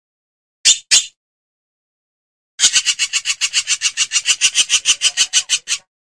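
Hornbill calling: two short, harsh rasps about a second in, then a long run of rapid rasping pulses, about seven a second, that stops shortly before the end.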